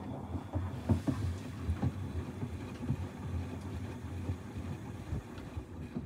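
Siemens WM14S794GB front-loading washing machine on a maintenance wash: the drum turns and sloshes its sudsy water, with a low steady hum under irregular splashes and knocks that pick up at the start.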